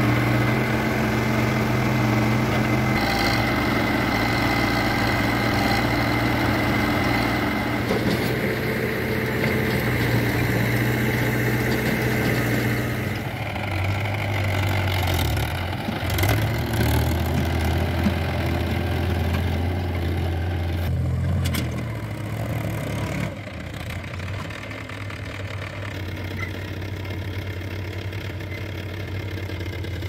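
Diesel engines of a JCB 3DX backhoe loader and Mahindra tractors running steadily. The engine note shifts about halfway through, and the sound is quieter for the last several seconds.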